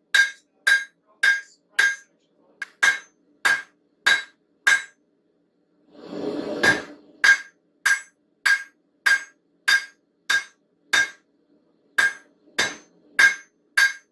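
Hand hammer forging a hot railroad spike on the anvil's horn: steady blows about one and a half per second, each with a bright metallic ring. About five seconds in, the hammering stops for roughly two seconds, with a short burst of noise before the blows resume.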